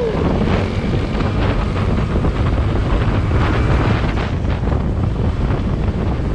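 Steady wind rushing over the microphone of a motor scooter riding at speed, with road and engine noise underneath.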